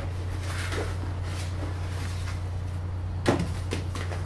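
Drone packaging being handled: faint rustling and light taps, with one sharp click a little over three seconds in, over a steady low hum.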